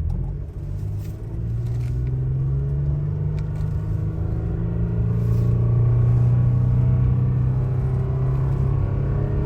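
Toyota Tacoma 3.5-litre V6 accelerating under full throttle in two-wheel drive on deep snow. The engine note climbs slowly and grows louder as the truck fights for grip with traction control on.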